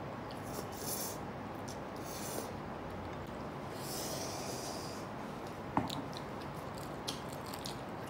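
A person eating Buldak spicy instant noodles: a few short slurps of noodles in the first half, then chewing, with a couple of light clicks near the end.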